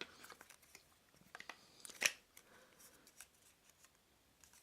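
Light clicks and scrapes of a flexible gooseneck arm being handled and fitted onto an action-camera clamp mount, with one sharper click about two seconds in.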